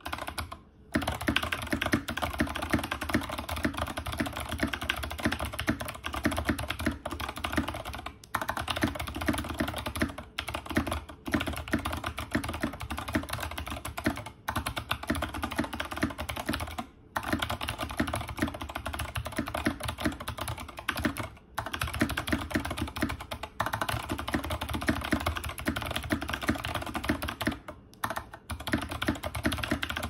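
Fast continuous typing on Zeal Clickiez switches in clicky mode, mounted in a plastic-cased, tray-mount BBOX60 keyboard with an FR4 plate and KAT PBT keycaps: a dense stream of sharp clicks with brief pauses every few seconds.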